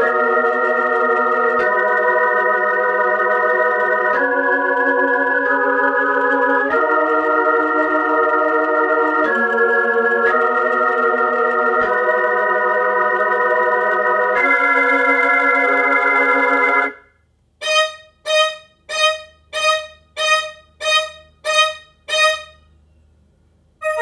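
Electronic organ playing sustained R&B chords that change about every two and a half seconds. After about seventeen seconds it switches to a run of short, evenly spaced stabbed chords, then stops.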